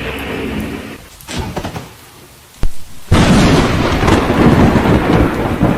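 Thunderstorm: rain, then a sharp crack about two and a half seconds in, and a moment later a sudden loud burst of thunder that keeps going.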